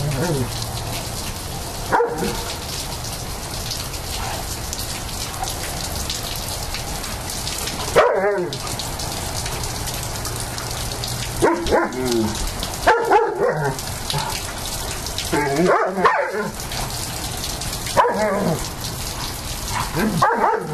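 Steady rain falling, with German Shepherds barking as they play. There is one bark after about two seconds, another near the middle, then short bouts of barking every couple of seconds in the second half.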